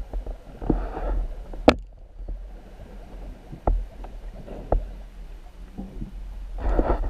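Muffled underwater audio picked up through a GoPro's waterproof housing: water sloshing and rushing in a few surges over a low rumble, with irregular sharp knocks, the loudest about a second and a half in.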